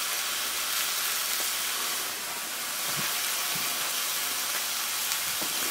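Venison steaks sizzling in ghee in a hot cast-iron skillet: a steady frying hiss.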